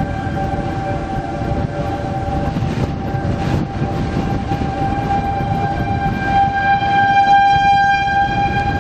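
Outdoor tornado warning siren sounding a steady, unbroken tone that swells louder near the end, over a steady low rumble.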